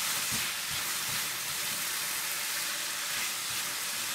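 Shredded carrots, almonds and raisins sizzling steadily in hot ghee in a frying pan, with a spatula stirring them now and then.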